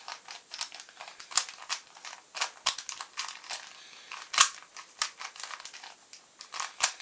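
Rubik's Cube being turned by hand, its plastic layers clicking and scraping in quick, irregular turns, several a second. One sharper click about four and a half seconds in is the loudest.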